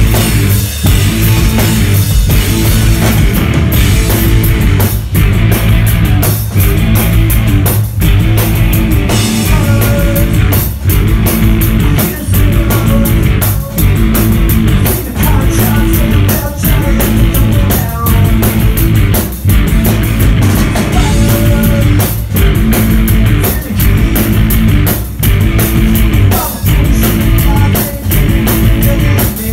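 Live punk-rock band playing loud: electric bass and drum kit driving a steady beat, with a singer's voice over it.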